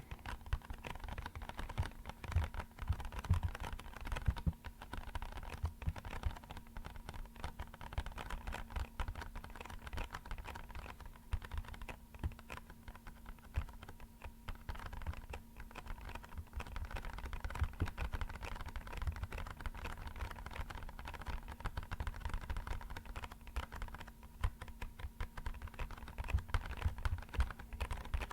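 Rapid, uneven tapping on an empty box: a dense patter of light taps, with no steady beat, that sounds like rainfall.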